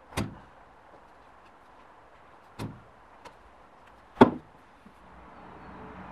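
A few sharp knocks of a grey plastic pipe coupling on a corrugated extraction hose being lifted and set down on an OSB workbench, the loudest about four seconds in. A low steady hum starts near the end.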